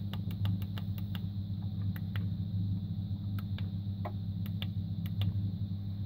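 Light clicks from the push buttons of a digital fermentation temperature controller as a thumb sets its setpoint, tapped quickly at first and then a few more spread out. Under them runs a steady low hum.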